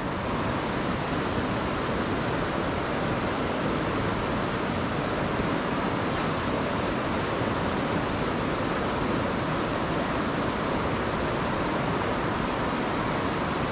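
River current rushing steadily over rocks and through a riffle, a constant even wash of water noise.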